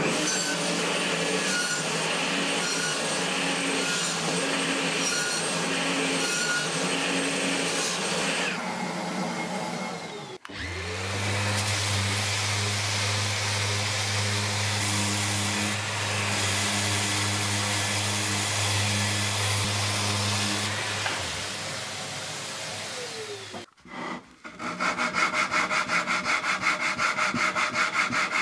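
Power-tool and rubbing noise on a wooden drum shell for about the first ten seconds, then a random orbital sander running with a steady hum as it sands the outside of the teak staves. Near the end, quick back-and-forth strokes of hand sanding on the wood.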